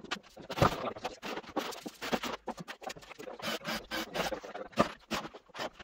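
Irregular light knocks, scrapes and rustles of hand work on plywood wardrobe carcasses, with footsteps across a canvas dust sheet.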